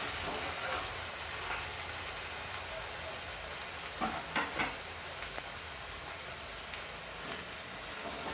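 Prawn and green mango curry sizzling in a non-stick kadai as it is stirred with a spatula, a steady hiss with a couple of short scrapes about halfway through.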